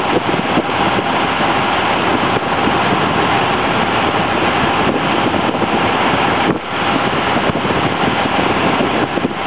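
Steady rush of wind on the microphone and water noise aboard a motor boat under way, with boat engines running underneath.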